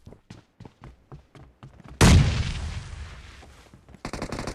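Video game shooter combat sounds: a run of light quick clicks, then a loud explosion about two seconds in that rumbles away over a couple of seconds, and rapid automatic gunfire starting near the end.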